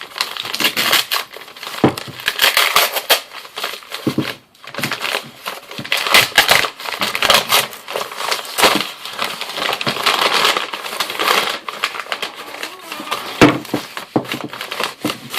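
Packaging being crumpled and torn open by hand: a continuous crinkling and crackling, with a few sharper knocks about two, four and thirteen seconds in.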